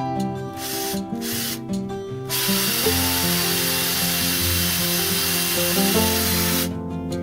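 Plucked-guitar music with a power tool laid over it. The tool gives a couple of short bursts, then runs with a loud, even hiss for about four seconds and stops.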